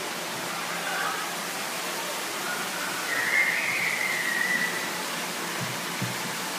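Steady rushing background noise, with a faint thin high tone drifting in about three seconds in and fading a second and a half later.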